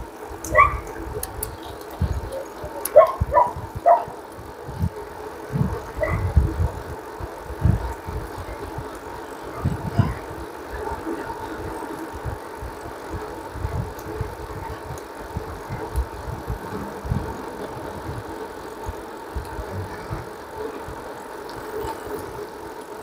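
Wind buffeting the microphone in gusts over the steady hum of a bicycle rolling downhill.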